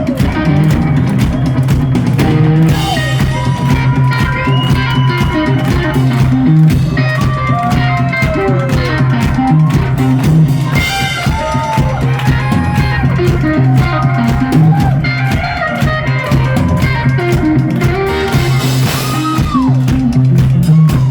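Live blues-rock from an electric guitar and a drum kit: the guitar plays lead lines with bent, sliding notes over steady, driving drumming.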